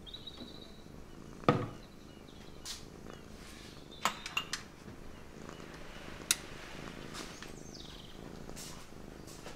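Siamese cat purring steadily while being stroked. Kitchen clatter comes through it: a cupboard door and a few sharp knocks, the loudest about one and a half seconds in.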